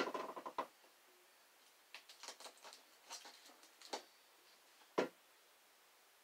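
Small scratchy clicks and crackles of a weeding hook picking tiny pieces of adhesive vinyl off the backing sheet: a crackly burst at the start, a run of quick ticks in the middle, and two sharp taps about four and five seconds in.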